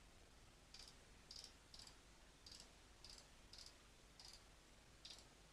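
Faint computer mouse clicks, about nine at irregular intervals, as numbers are keyed into an on-screen calculator.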